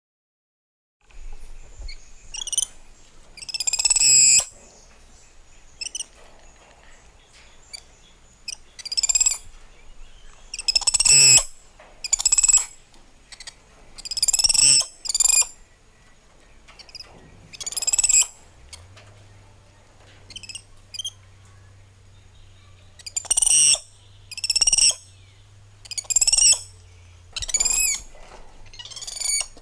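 Spider monkeys calling: a run of loud, high-pitched calls, each half a second to a second long, coming every one to two seconds, beginning about a second in.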